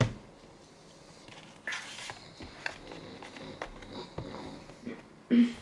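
Handling of a new MacBook Pro laptop as it is opened. It starts with a sharp knock, then small clicks and soft rustles. A short low grunt-like sound comes near the end.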